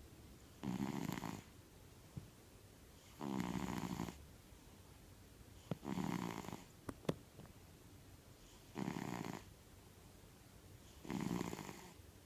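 A domestic cat snoring loudly in deep sleep: five snores, one about every two and a half seconds. A few sharp clicks come near the middle.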